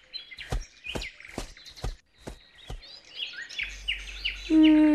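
Birds chirping over a run of six evenly spaced footsteps, about two a second, in the first half. Near the end, a loud, steady held tone begins.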